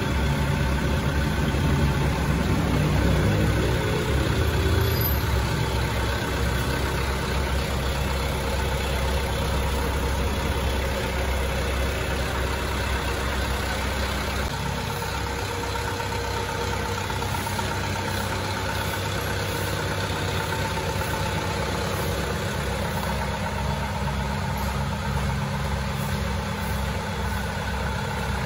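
Mitsubishi Canter truck's turbodiesel engine idling steadily.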